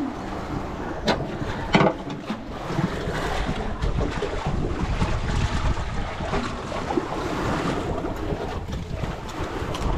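Wind buffeting the microphone over the wash of sea water around a small boat, with two sharp knocks about a second and two seconds in.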